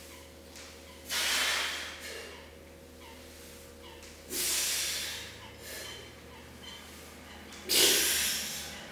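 A man breathing hard through a heavy set of barbell back squats: three sharp, noisy breaths about three seconds apart, one with each rep.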